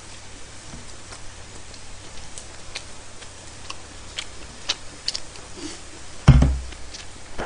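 Close-miked eating sounds: sparse, irregular light clicks of chewing and metal chopsticks against a rice bowl over a low steady hum. A dull thump about six seconds in, likely a knock against the table.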